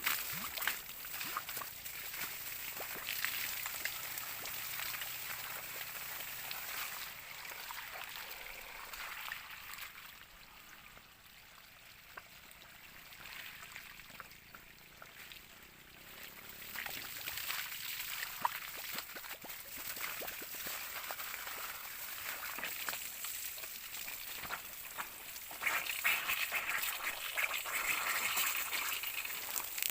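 Water running and splashing, a gurgling noisy wash that fades for a few seconds in the middle and then grows again, louder near the end.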